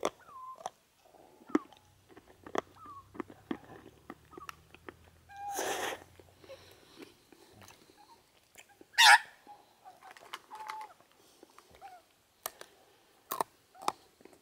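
Australian magpies at close range giving short, soft falling calls among many sharp clicks, with two louder harsh calls about six and nine seconds in.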